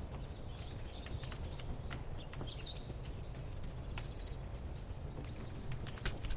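Outdoor ambience: a steady low rumble like wind, with scattered faint clicks, a few short high bird-like chirps, and a high trill lasting about a second and a half near the middle.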